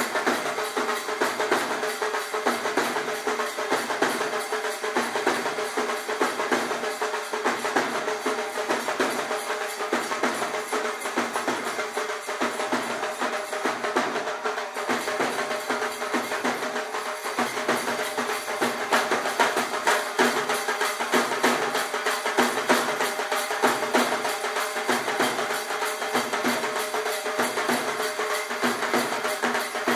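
Instrumental music with a steady drum beat and held melodic tones, without singing.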